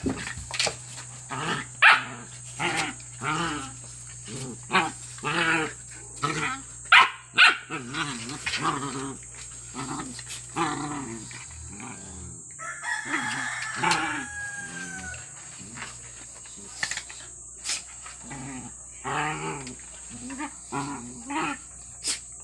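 Two dogs play-fighting, with rapid short bursts of growling and barking as they bite at each other.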